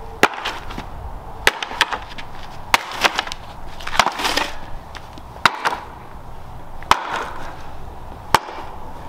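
An axe chopping into a weathered wooden pallet: sharp whacks about every second and a half, with wood cracking as the slats split.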